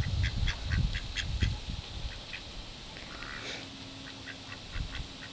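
Ducks quacking: a quick run of short quacks, about four a second, fading out after about two seconds, then one more call about three and a half seconds in.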